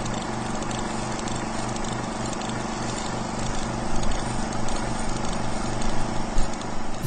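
A steady hiss with a low hum underneath that pulses evenly, swelling somewhat louder in the second half.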